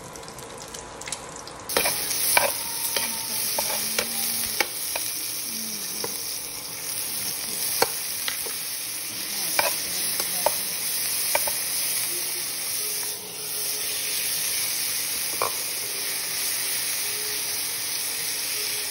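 Onion and tomato sizzling as they sauté in hot oil in a frying pan, with a spatula stirring and scraping, its scattered sharp clicks against the pan. The sizzle starts suddenly about two seconds in and then holds steady.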